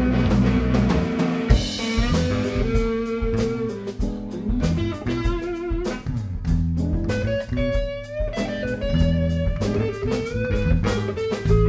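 Background music: a guitar-led band track with bass and drum kit, in a bluesy style.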